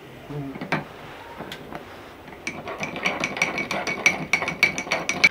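A metal spoon clinking rapidly against a small metal Turkish coffee pot (cezve) as coffee is stirred in it, about five ringing clinks a second. A few separate knocks come before the clinking starts, about halfway through.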